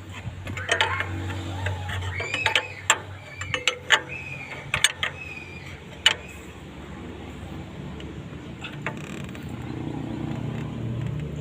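Irregular sharp metallic clicks and knocks of hand tools working on metal parts, over a low steady hum.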